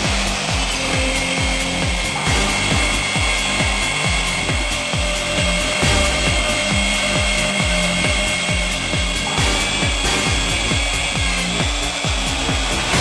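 A Metabo magnetic core drill running and drilling, its motor giving a steady whine, over background music with a steady beat of about three strokes a second.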